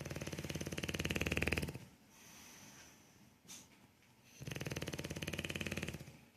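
Sleeping bulldog snoring: two long, fluttering snores about four seconds apart, each lasting nearly two seconds, with a quieter breath between them.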